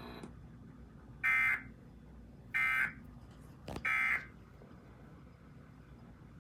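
Emergency Alert System end-of-message data bursts: three short, shrill digital squawks about a second and a quarter apart, marking the end of the alert. A faint click comes just before the third burst.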